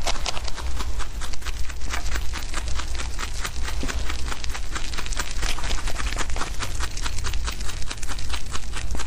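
Young rabbits chewing fresh grass leaves close up: rapid crisp crunching, several bites a second, over a low steady hum.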